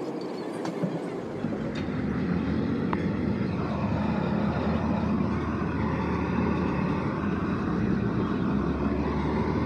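Steady mechanical rumble of an engine or motor running, its deep low end coming in about a second in and then holding even.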